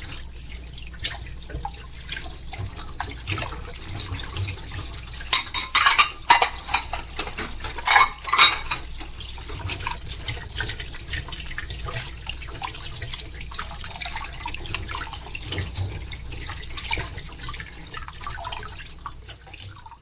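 Dishes being washed in a sink under a running tap, with plates and cutlery clinking against each other. The clatter gets louder for a few seconds about six to eight and a half seconds in.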